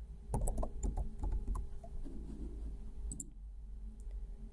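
Computer keyboard being typed on, a quick run of keystrokes in the first second and a half, then a mouse click about three seconds in, over a faint low hum.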